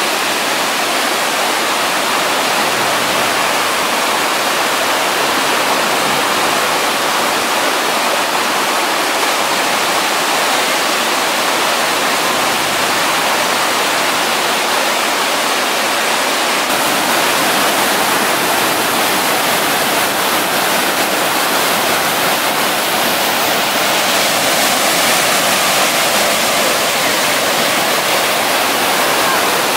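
A river rushing over rocks in a loud, steady, unbroken wash of water noise.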